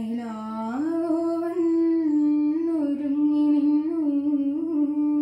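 A girl's solo voice singing a light-music song without accompaniment: a held low note, then about a second in a glide up to a higher note that she sustains with small ornamental wavers.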